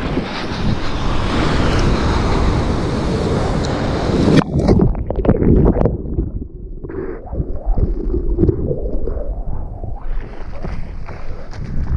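Seawater rushing and splashing around a paddled surfboard, with wind on the microphone. About four and a half seconds in, the sound turns suddenly to a muffled low underwater churn as a wave washes over the board's nose. About ten seconds in, the hiss of foamy whitewater returns.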